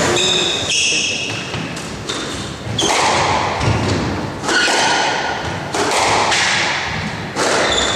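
Squash rally: the ball cracking off rackets and the walls about once a second, each hit ringing in the enclosed court, with sneakers squeaking briefly on the wooden floor.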